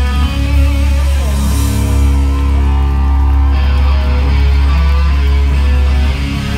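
Live hard rock band playing loud, with distorted electric guitars over a heavy, booming low end, recorded from within the audience.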